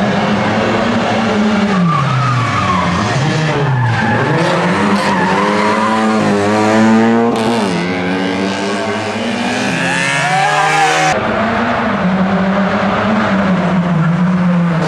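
Rally car engines revving hard, pitch climbing and dropping repeatedly through gear changes, with tyres squealing as the cars take the corner. The sound changes abruptly about eleven seconds in.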